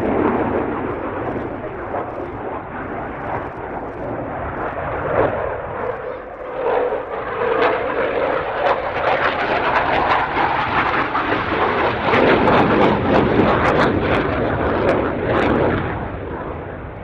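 Dassault Rafale fighter's twin Snecma M88 turbofan jet engines during a display pass: a loud, steady jet noise that grows louder in the second half with sharp crackles, then eases off near the end.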